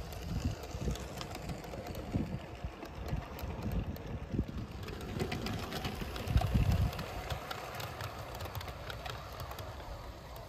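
Gusts of wind buffeting the microphone in uneven low rumbles, strongest about six to seven seconds in. Under them, a garden-scale model train runs along the track with faint ticking of wheels over the rails.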